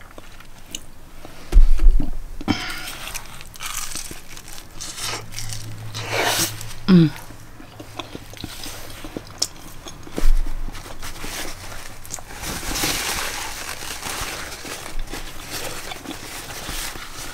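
A person biting and chewing a chicken quesadilla, with mouth clicks throughout. A dull low thump comes about two seconds in, and a short falling hum near seven seconds.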